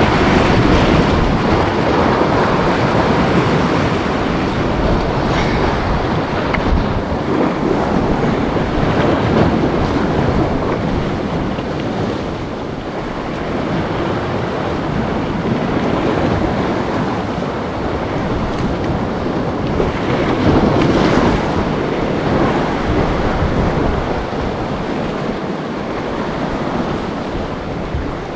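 Wind buffeting the microphone over the rush of ocean waves, a dense steady noise that swells and eases.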